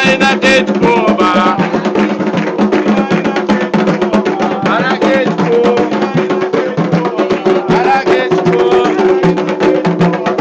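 Candomblé ritual music: drums beaten in a fast, dense rhythm with a sharp clacking percussion, under voices singing a chant.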